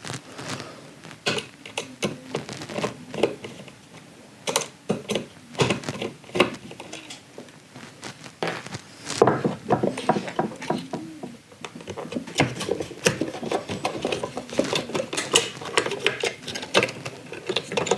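Irregular clicks, taps and light rattles of a screwdriver and small plastic and metal parts being handled as a circuit board is unscrewed from a car heater blower motor, with one sharper click about nine seconds in.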